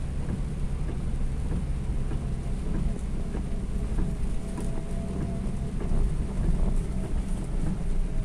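Inside the cabin of a Toyota Avanza driving through rain: a steady low rumble of the car on the wet road, with a hiss of rain and scattered light ticks of drops on the windshield.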